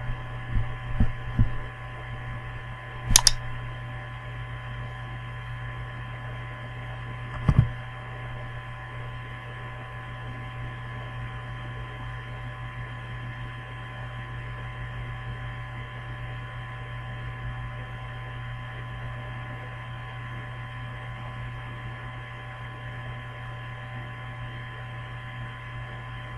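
Steady electrical hum with faint higher tones over it, broken twice by a brief knock, about 3 seconds in and again about 7 seconds in.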